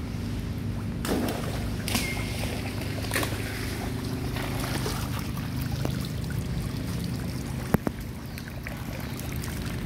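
A steady low mechanical hum, with a few brief splashes of macaques wading in shallow water about one, two and three seconds in. A short high call slides down and then holds about two seconds in, and a sharp click comes near the end.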